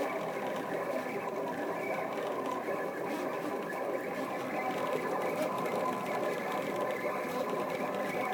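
Stepper motors of a Rostock delta 3D printer driving its carriages through a G-code toolpath, a busy whine of several tones that shifts in pitch as the moves change speed.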